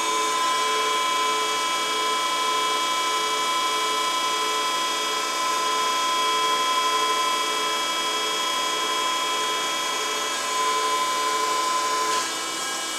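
Denn RPI 300 CNC hydraulic spinning lathe running a program cycle: a steady high machine whine with a faint pulsing hum beneath it, cutting off about twelve seconds in as the cycle ends.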